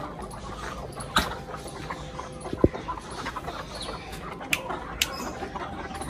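Hens clucking in a coop, with a few sharp knocks or clicks, the loudest about two and a half seconds in.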